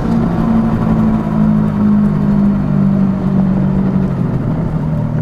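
Suzuki V-Strom 650's V-twin engine running at a steady cruise under wind and road noise, its note easing down slightly near the end.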